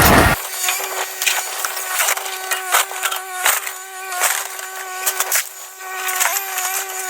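Old wooden boards cracking and splintering in a series of sharp snaps as the structure is pulled apart, over a steady whine.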